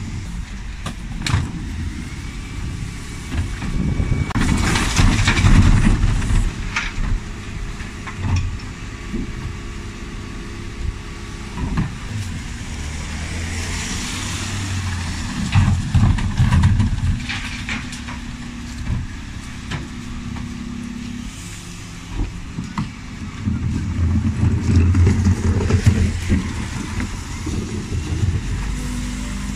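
Dennis Elite 6 refuse truck running, its engine swelling louder three times, with scattered clanks and knocks.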